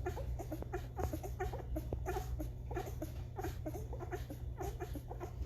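Six-day-old Great Bernese puppies (Great Pyrenees × Bernese Mountain Dog) squeaking and whimpering, many short high cries overlapping, over a steady low hum.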